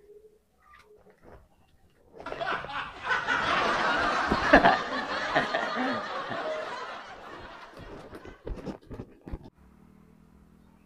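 A burst of group laughter, like a comedy laugh track, swelling up about two seconds in and slowly dying away over the next several seconds.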